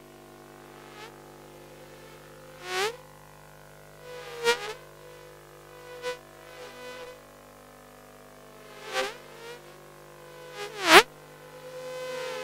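Electric toothbrush buzzing, worked into a bee-like drone: a steady many-toned hum with several swoops that fall in pitch like bees flying past, the loudest near the end.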